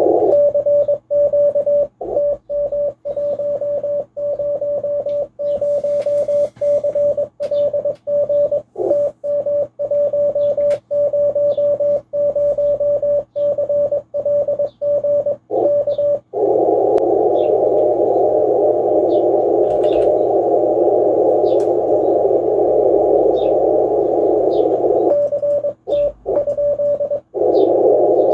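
Morse code (CW) sent as a single keyed tone of about 600 Hz while a CQ call goes out. A little over halfway through it gives way to the hiss of a shortwave transceiver's receiver heard through a narrow CW filter, with a short run of keyed Morse tone near the end before the hiss returns.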